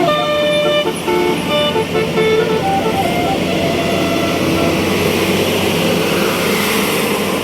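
Tour bus's telolet basuri multi-tone horn playing a quick melody of short notes, then a steady rush of road noise that swells toward the end.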